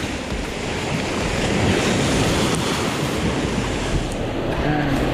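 Sea surf breaking and washing over shoreline rocks in rough, windy conditions (about 5–6 Beaufort), a steady churning rush of foaming water, with strong wind buffeting the microphone.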